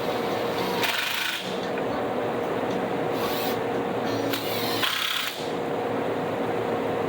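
Power tool running on wood, with a steady motor hum; the cutting grows harsher in short spells about three times.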